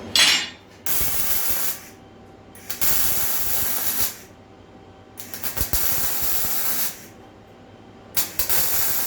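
Electric arc welder laying short decorative weld beads on sheet steel: five bursts of welding, each about a second long and starting with a crackle, with short pauses between.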